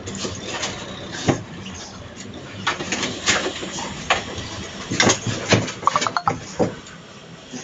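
Golden retriever and dachshund puppies play-fighting in a plastic dog bed: irregular knocks and scuffles of paws and bodies against the plastic, with a quick run of high squeaks about six seconds in.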